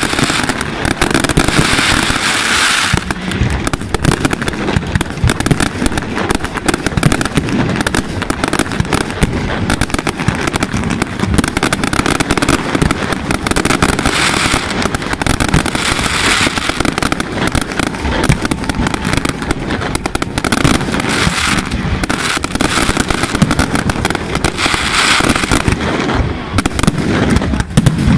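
Aerial fireworks display: shells bursting in a dense, unbroken run of bangs, many close together.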